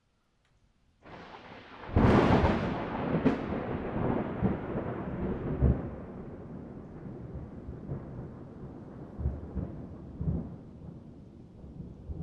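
Thunder: a sharp crack about two seconds in, a second crack about a second later, then a long rolling rumble that slowly fades, with low thumps.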